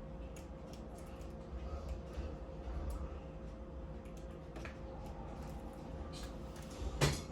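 Scattered light clicks and taps of utensils and dishes being handled while decorating cupcakes, with one sharper knock near the end, over a steady faint hum.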